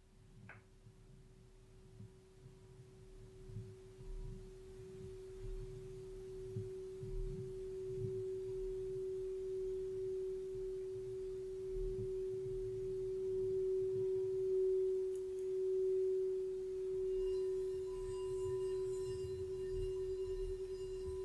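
Clear quartz crystal singing bowl rimmed with a wand, giving one pure, steady tone that swells gradually louder and wavers slowly in volume. Fainter higher ringing tones join in over the last few seconds.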